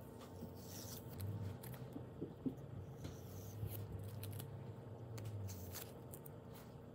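Masking tape being peeled off the edges of a watercolour paper in a few short ripping pulls, with light handling of the paper and a sharp tick about two and a half seconds in.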